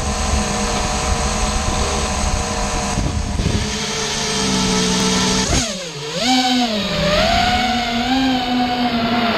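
FPV racing quadcopter's four brushless motors (EMAX RS2205 2300kv on Gemfan 5040 three-blade props) humming at idle while the quad sits on the floor. About five and a half seconds in, the pitch dips and then sweeps up as it takes off, and the motor whine keeps rising and falling with the throttle.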